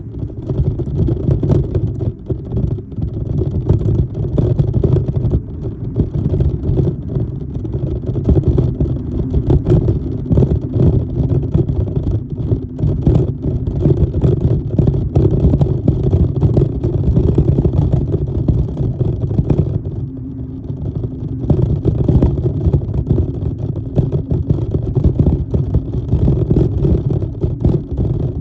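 Motorcycle engine running under load, pulling through deep sand, with wind buffeting the microphone.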